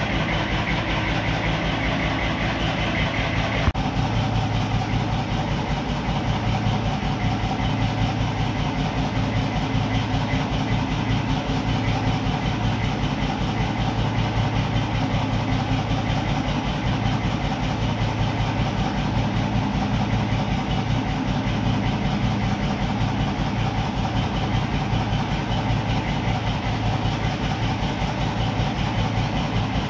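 An engine or machine running steadily: a loud, even drone with a fast low pulse, and a single click about four seconds in.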